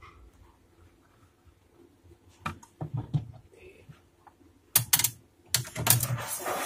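Sharp plastic clicks and knocks as a refrigerator thermostat and its sensor wire are handled against the fridge's plastic liner. A few come about two and a half to three seconds in, then a louder, denser run near the end.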